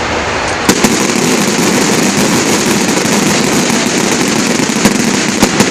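Fireworks crackling in a dense, continuous string of rapid pops, with a few louder cracks. It starts sharply about a second in and stops abruptly near the end.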